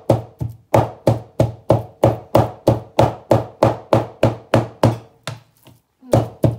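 A large knife chopping raw chicken on a plastic cutting board, mincing it into ground meat. Steady strokes about three a second, with a short pause near the end before the chopping starts again.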